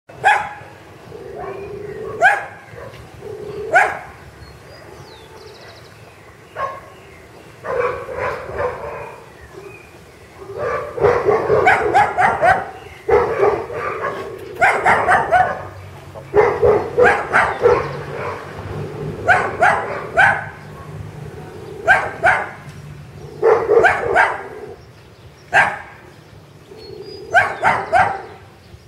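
Dog barking in repeated bursts, sometimes a single bark and sometimes a run of several quick barks.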